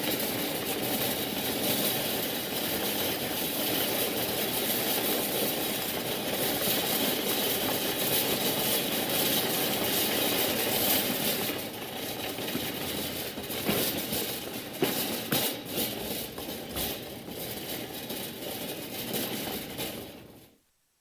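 A stock sound effect of steady, dense rumbling and rattling noise, like a vehicle or train running. In the second half it turns patchier, with separate clatters, and it fades out near the end.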